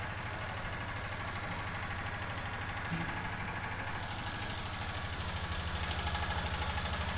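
A motor or engine running steadily with a fast, low pulsing beat, growing a little louder in the last couple of seconds.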